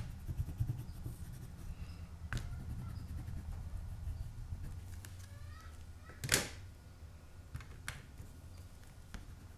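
Quiet handling of water-soluble wax pastel crayons: a few small clicks, and one sharp click about six seconds in as the crayons are handled at their metal tin. A low steady hum runs underneath.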